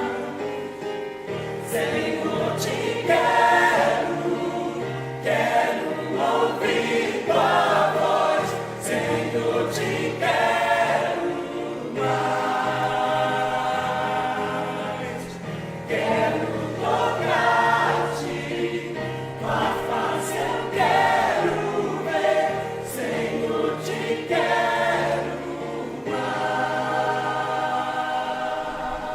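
A choir singing a hymn in sustained phrases, fading down near the end.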